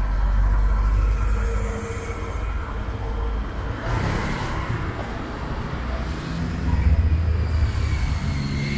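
City street traffic: motor vehicles running and passing. A deep engine rumble fades after the first couple of seconds, a rushing swell of a vehicle going by comes about four seconds in, and engine sound builds again near the end.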